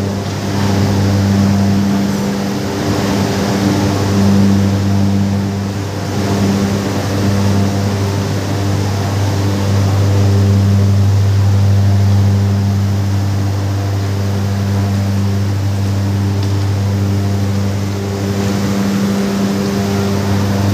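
Heavy factory machinery running: a loud, steady drone with a strong low hum and a ladder of higher tones over a rushing noise.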